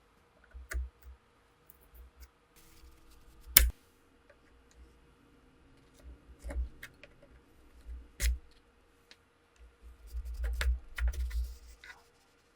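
Clicks and knocks of hand work on an old Webley & Scott revolver being restored. The loudest is a sharp knock about three and a half seconds in, another comes about eight seconds in, and a quick run of small knocks and rattles follows near the end.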